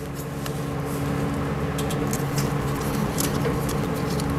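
Vinyl electrical tape (3M Super 33+) being pulled off the roll and wrapped around a wire splice, a few faint crackles and clicks, over a steady low hum.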